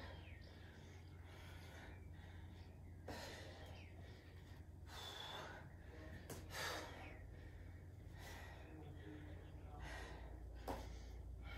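A woman breathing hard from exertion, with a short forceful breath every couple of seconds during chair step-ups. There is a short tap near the end.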